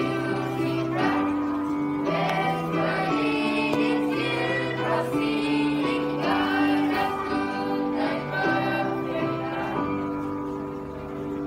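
A mixed choir of school students singing a Christmas carol over sustained instrumental chords. The voices stop near the end while a held chord carries on.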